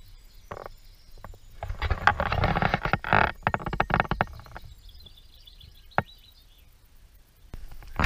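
Water splashing and sloshing in a shallow stream as a small trout is held in the water by hand and released, loudest for about three seconds in the middle. A single sharp click comes near the end.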